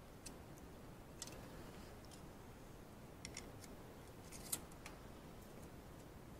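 Faint, scattered metallic clicks and taps of small hand tools, a feeler gauge and spanner, working on the exposed valve gear of a Royal Enfield 650 twin during a valve-clearance check. There are about six sparse clicks, the loudest about four and a half seconds in.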